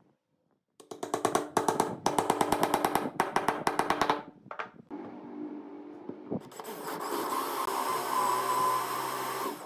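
Wooden mallet tapping rapidly and steadily on a wooden knob, driving it into a wooden base, for about three seconds. After a short pause a power drill runs steadily, boring into the wooden knob.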